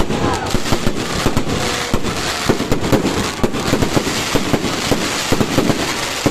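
Fireworks going off in a rapid, irregular string of sharp bangs and crackling pops, thickest in the second half, over a steady rumble of more distant blasts.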